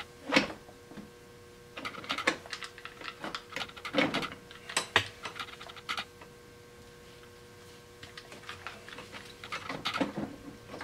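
Irregular light metallic clicks and clunks of a Polaris Magnum 500 transmission's gears, shift forks and case being wiggled and worked by hand to line them up. The clicks come in small clusters, with a pause in the middle.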